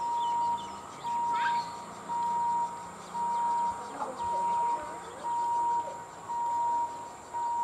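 Electronic warning beeper sounding a single steady high tone in even beeps, about one a second, each lasting about half a second, over faint background noise.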